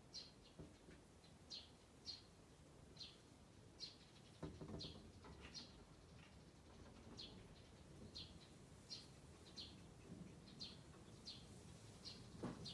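A small bird chirping faintly and repeatedly, short high notes coming about one or two a second. There is a low muffled rustle about four seconds in.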